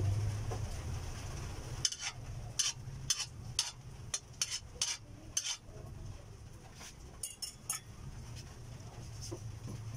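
Metal spatula scraping and clinking against an empty aluminium wok, about a dozen short strokes starting about two seconds in, over a steady low hum.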